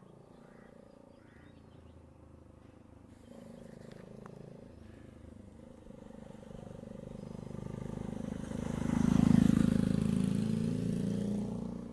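A motor vehicle engine passing by: it grows louder over several seconds, is loudest about nine seconds in, then fades.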